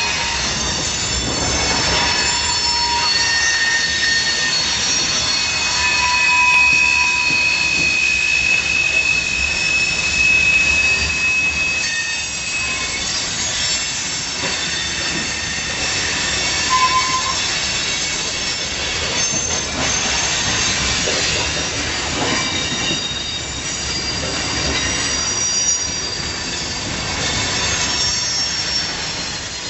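Freight cars of a salt train rolling past over a switch, their wheels squealing in thin, high screeches that come and go over the steady rumble of the cars.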